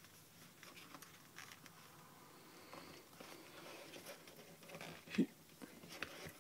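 Faint rustling and light scraping of fingers working open a small cardboard box, with scattered soft clicks and one sharper tap about five seconds in.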